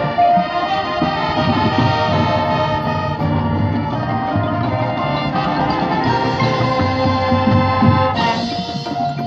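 A marching band playing: sustained brass chords over percussion, with a brighter, fuller passage about eight seconds in.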